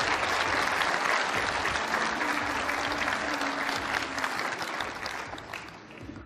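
Audience applauding after a talk ends, the clapping dying away near the end.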